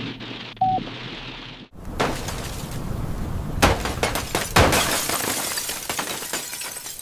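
Rain hissing on a car, then from about two seconds in large hailstones pelting a windshield, the glass cracking and shattering, with two heaviest hits about a second apart.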